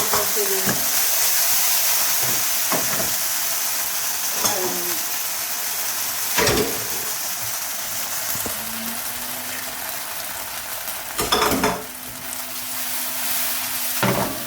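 Gravy sizzling in a frying pan as it is stirred, the hiss slowly dying down, with a utensil knocking against the pan now and then and a quick clatter of several knocks near the end.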